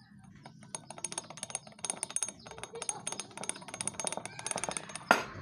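Rapid, irregular metallic clicking and rattling of loose parts in a Honda Vario 125's CVT variator, with one sharper knock near the end. The clicking comes from heavy play, which the mechanic blames for the scooter's rattle at low rpm.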